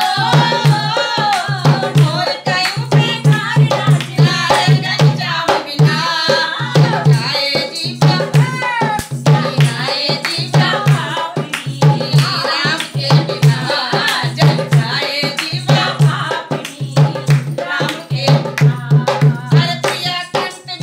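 Women singing a Hindi devotional Ram bhajan in folk style, with a dholak drum keeping a steady beat and hands clapping along.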